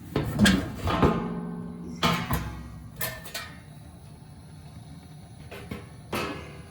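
The metal cover of a residential gas steam boiler being pulled off and handled: a series of clanks and knocks, the panel ringing and fading after the hits about a second in, with further knocks later.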